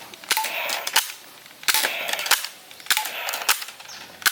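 Gunshot-like cracks from a toy gun, each a sharp crack with a short hissing tail, repeating about once every 1.2 seconds.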